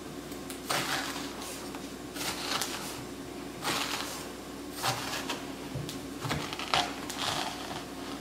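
Metal spoon scraping seeds and stringy pulp out of the inside of a halved pumpkin, in a series of short scrapes about a second or so apart, over a steady low hum.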